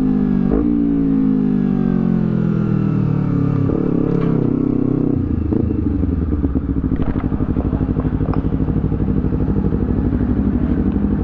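Honda CBR250RR parallel-twin engine through a Villan Z2 carbon exhaust: two quick throttle blips at the start, revs falling away over about five seconds, then a steady, evenly pulsing idle.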